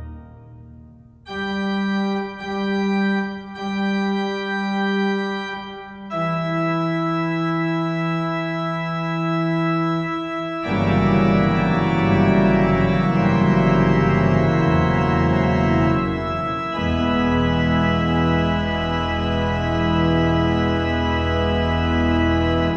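Pipe organ playing. A chord dies away at the start, then a single melodic line of short repeated notes, a long held note, and from about ten seconds in, full sustained chords.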